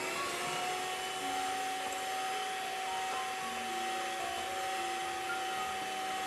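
Electric hand mixer running steadily on low speed, its beaters whipping egg whites and sugar into meringue in a glass bowl: a steady motor whine.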